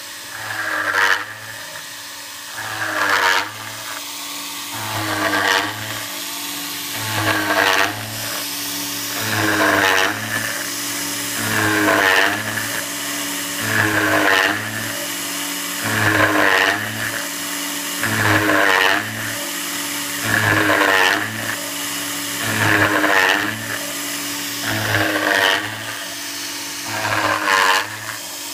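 Scratch-built CNC mill's spindle at about 8000 RPM driving a 3 mm single-flute upcut end mill through 5 mm aluminium. The cutting noise swells in regular surges about every two seconds, each falling in pitch, over a steady hum.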